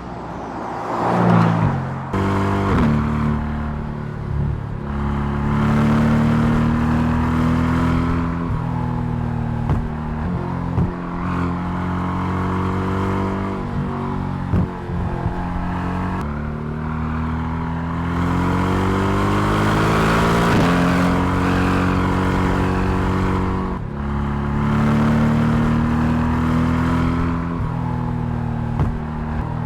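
Mercedes-AMG GT R's 4.0-litre twin-turbo V8 driven hard, the engine note climbing with the revs and dropping sharply at each gear change, several times over.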